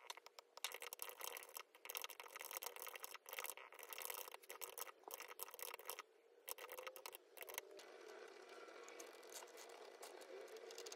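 Quiet typing on a computer keyboard, quick runs of key clicks with short pauses. About seven and a half seconds in it gives way to a pen scratching across notebook paper.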